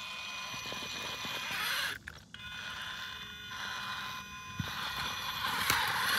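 Axial Ryft RC rock bouncer's Castle electric motor and drivetrain whining as it crawls up a rock, the whine cutting out briefly twice as the throttle is eased off. A few sharp knocks of tires and chassis against the rock.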